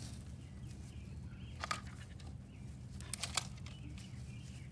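A few short clicks and rattles, about two seconds in and again near three seconds, from the plastic handle of a retractable dog leash being handled, over a steady low outdoor rumble.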